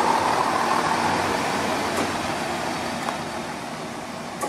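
CrossCountry Class 170 Turbostar diesel multiple unit running along the platform, a steady rumble of underfloor engines and wheels that gradually fades as the train moves away.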